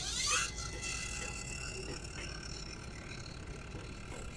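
Brushless motor of a Dekton M21-CN210Plus cordless miter saw spinning its steel-cutting blade up with a rising whine in the first half-second. It then runs free with a steady whine before the blade meets the steel.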